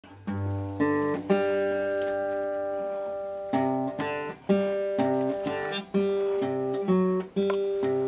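Acoustic guitar played by hand: chords struck and left ringing, one held for about two seconds near the start, then changing about twice a second.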